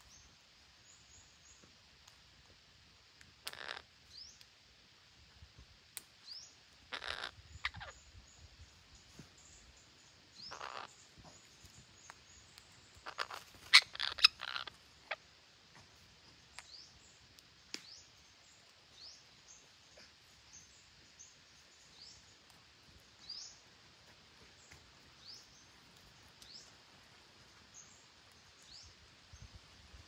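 Red-breasted parakeets calling: harsh squawks now and then, with a quick run of louder calls about halfway through, over faint short rising chirps that repeat every second or two.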